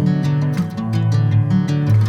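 Background music: a soft song led by plucked acoustic guitar, with no singing in this stretch.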